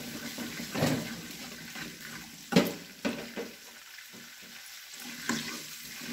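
Minced garlic and shallots frying in oil in a wok, a low sizzle, while a metal spatula scrapes and knocks against the pan as they are stirred; the sharpest knock comes about two and a half seconds in.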